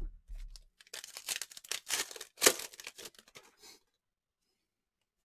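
Trading-card pack wrapper being torn open and crinkled: a rough crackling rip about a second in, with one sharp snap near the middle.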